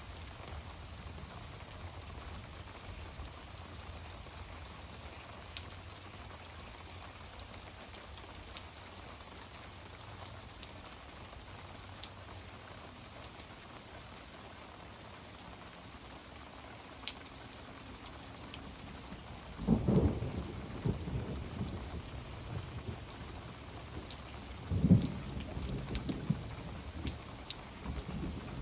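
Steady rain falling, with individual drops ticking close by, and thunder rumbling twice, once about two-thirds of the way through and again about five seconds later.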